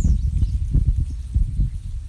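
Motorcycle engine running with a loud, uneven low pulsing rumble. A bird chirps once near the start.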